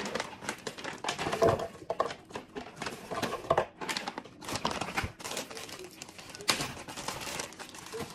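Frozen mango chunks clattering into an empty blender jar, tipped out of a crinkling plastic bag, in irregular bursts of sharp clicks and rattles. Frozen banana pieces start dropping in from a zip-top bag near the end.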